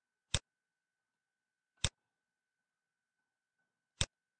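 Three sharp computer mouse clicks, about a second and a half and then two seconds apart, over faint room tone with a thin steady whine.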